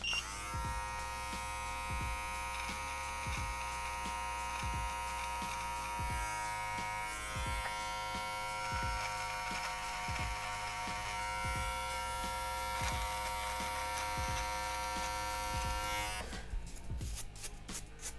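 Electric beard trimmer buzzing steadily at one pitch as it trims the mustache and beard, then switching off about 16 seconds in.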